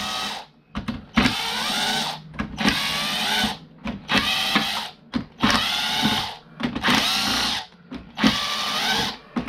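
Cheap power drill undoing the screws of a fuse board in about seven short bursts of roughly a second each, the motor whining up with each trigger pull.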